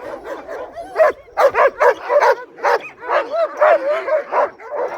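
Several sled dogs barking and yipping together: a steady run of short calls that rise and fall in pitch and overlap one another.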